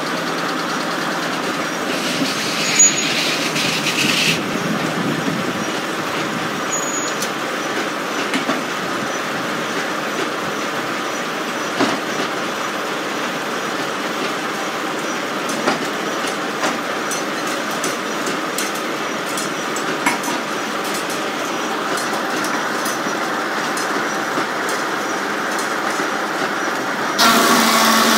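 Reeves circular sawmill running without a cut, a steady mechanical din of the turning blade and drive with scattered small clicks. A hiss rises over it for about two seconds near the start, and near the end the sound suddenly gets louder with a steady pitched hum added.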